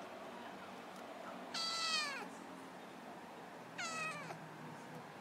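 A kitten meowing twice, about two seconds apart: two short, high mews that each drop in pitch.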